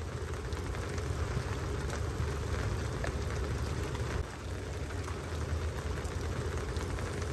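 Steady rain falling, a dense patter over a low rumble.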